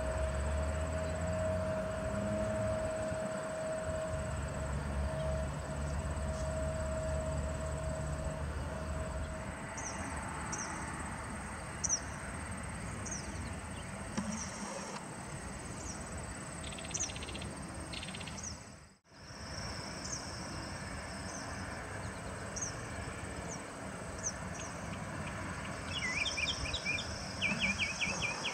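Distant jet airliner's engines giving a low rumble as it climbs away, which stops about nine seconds in. Over it there is steady outdoor ambience with high chirping about once a second, and a bird twittering near the end.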